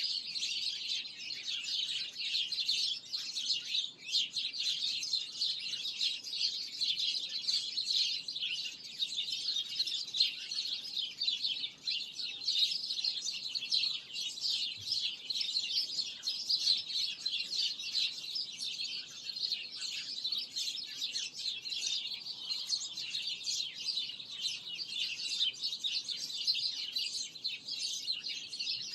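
Many small birds chirping at once in a dense, continuous chorus of rapid, high-pitched chirps.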